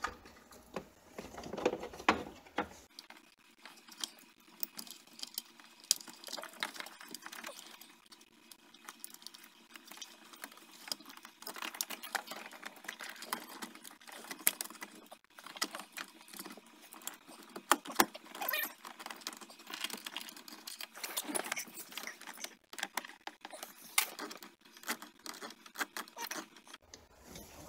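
Irregular clicks, rattles and scrapes of hard plastic dash parts being handled, as the heater-control unit is fed back into the dash and its position checked.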